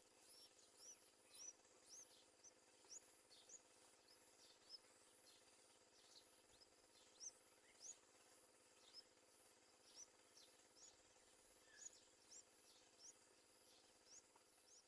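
Faint, quick series of short, high, rising chirps from a bird, about two or three a second.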